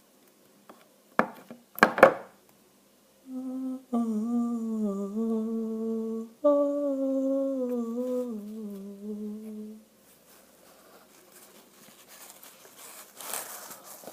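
A man hums a short tune in two wavering phrases, the second sinking in pitch. Before it come two short, sharp handling noises, and near the end there is a faint crinkling of packaging.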